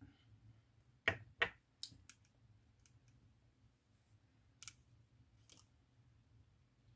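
Sharp clicks and light taps from a foundation pump bottle being handled and set down: two loud clicks about a second in, a few fainter ones after, and two more a little past the middle.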